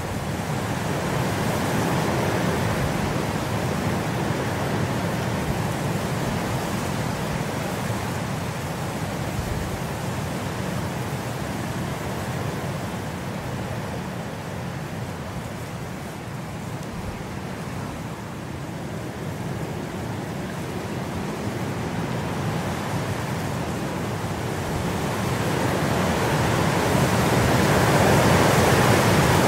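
Steady rain, an even hiss that slowly swells and eases, loudest near the end.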